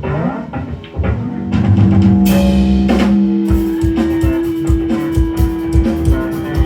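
Live band playing an instrumental passage on drum kit and guitar. It swells about one and a half seconds in, with a cymbal crash a little after two seconds, then settles into a fast, driving drum beat under long held notes.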